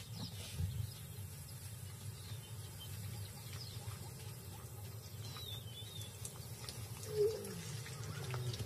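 Quiet savanna ambience: a steady low rumble with faint bird chirps, and one short, low bird call about seven seconds in.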